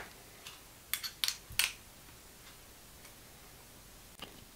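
A few light clicks and taps of small metal hex-head bolts and washers being handled and fitted into a 3D-printed plastic blade guide holder, most of them in the first two seconds.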